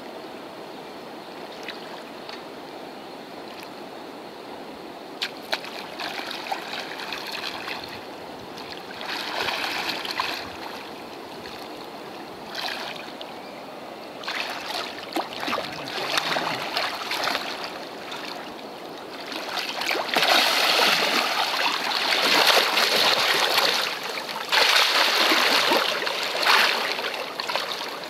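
Water splashing and sloshing in irregular stretches, loudest from about twenty seconds in.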